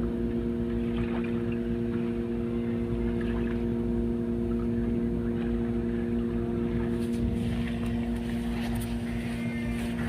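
A machine running steadily: a constant hum of several fixed tones over a low rumble, unchanging in pitch and level.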